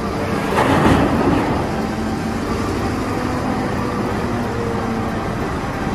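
Caterpillar 992G wheel loader's diesel engine running under load while it dumps a bucket of earth into a dump truck, with a rush of spilling material that is loudest about a second in.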